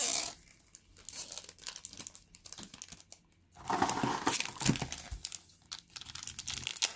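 Foil booster-pack wrappers crinkling as they are handled, irregular throughout, with a louder burst of crinkling a little past halfway.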